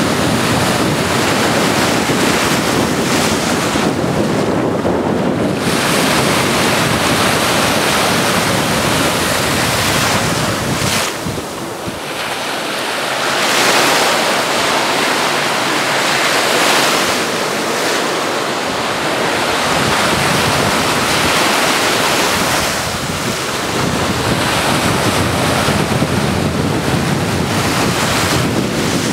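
Small waves breaking and washing at the shoreline, mixed with a breeze buffeting the microphone. The low rumble of the wind drops away for a few seconds near the middle.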